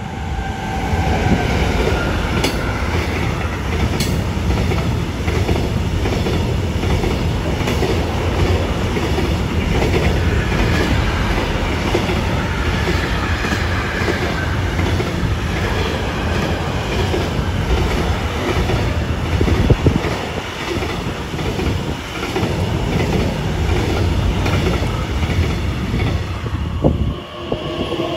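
BLS Cargo Re 485 electric locomotive passing at speed, its motor whine falling in pitch, followed by a long intermodal freight train of container and trailer wagons rumbling and clattering over the rails. The rumble drops away as the last wagon clears near the end, and the rising whine of an arriving electric multiple unit begins.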